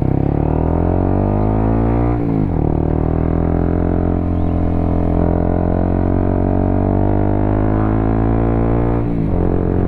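Honda CBR motorcycle engine through a WRX K3 oval aftermarket exhaust, ridden under acceleration. The note climbs, drops sharply with an upshift about two seconds in, climbs slowly again, and drops with another upshift near the end.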